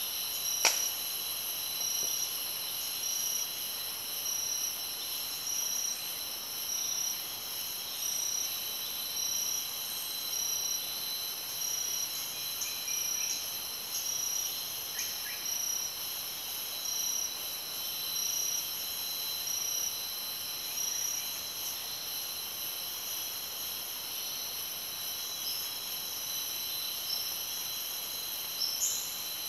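A chorus of insects shrilling steadily at several high pitches, one of them pulsing in a regular beat. A single sharp click about a second in, and a few faint short chirps.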